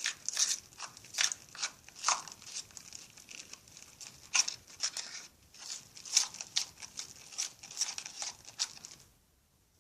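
A small spoon stirring thickening homemade slime in a container: irregular scraping and clicking strokes, a few a second. It stops abruptly near the end.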